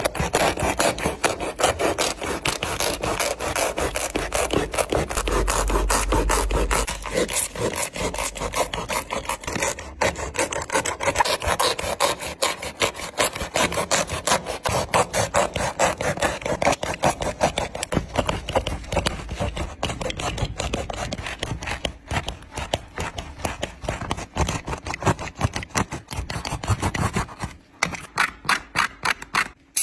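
Utility knife blade sawing back and forth through the glued seam between a basketball shoe's upper and its foam midsole, cutting the upper away from the sole. The strokes are rapid and short, run almost without a break, and pause briefly near the end.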